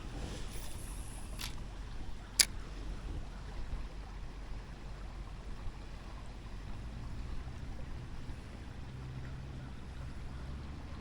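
Steady low rumble and soft hiss of creek water flowing, with two sharp clicks in the first few seconds, the second one loud.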